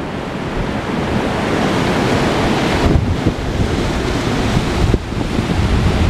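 Rough sea surf breaking and rushing against a stone sea wall, with gusty wind buffeting the microphone.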